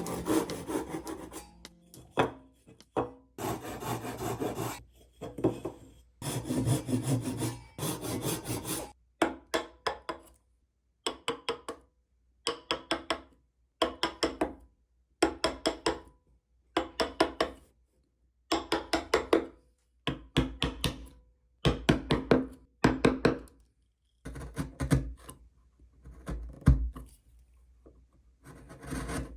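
Hand tool cutting wood by hand, with rasping strokes. Longer drawn strokes come in the first few seconds, then short bursts of quick strokes about once a second with brief pauses between.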